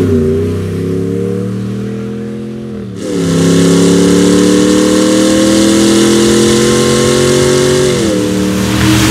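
RAM 1500's 5.7L Hemi V8 through a Borla Touring stainless exhaust, under acceleration. For the first three seconds the engine note falls and fades. Then a loud steady pull follows, its pitch slowly climbing, with a dip near the end as the transmission shifts up.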